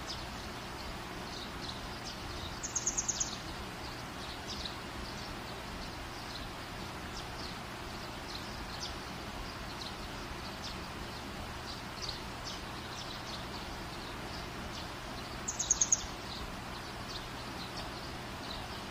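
Birds chirping in the background over a steady low hiss, with two short, rapid series of high-pitched chirps, about three seconds in and again near sixteen seconds.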